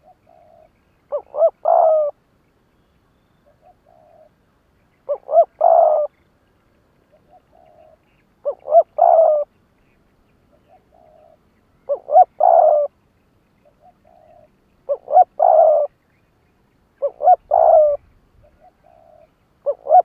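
Spotted dove cooing, the same phrase over and over about every three seconds: a soft short coo, then two quick notes and a longer, louder coo. This is the challenge call of a decoy bird, used to lure wild spotted doves.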